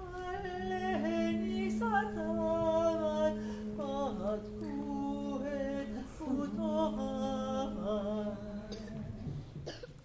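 Wordless female singing of a slow lullaby melody, hummed over a steady low held note that stops shortly before the end.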